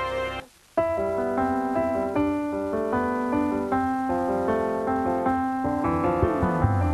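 Background music: a piano-like keyboard melody of held notes, starting after a brief break about half a second in, with a falling run of notes near the end.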